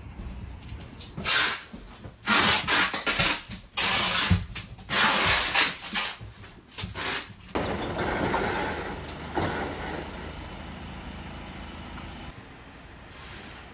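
A ladder truck's engine running with a steady low hum. For the first half it is covered by loud, irregular bursts of rushing noise, which give way about seven seconds in to a softer, steadier noise that fades out.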